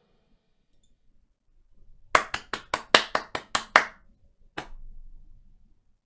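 One person clapping his hands, about eight quick claps at roughly five a second, starting about two seconds in. One softer sharp tap follows about a second later.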